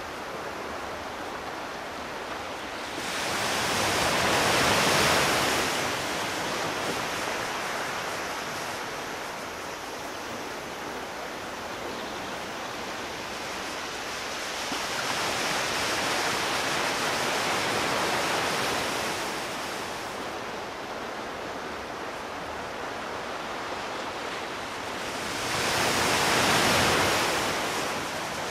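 Ocean surf washing onto the shore: a steady rush of waves that swells louder three times, about three seconds in, around the middle, and near the end.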